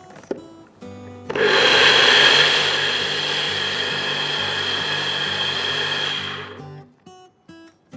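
Personal blender with a jar pressed onto its motor base, blending soaked oats, almonds and mango into a thick smoothie. A click, then the motor runs for about five seconds, loudest at first, steady after, and winds down near the end.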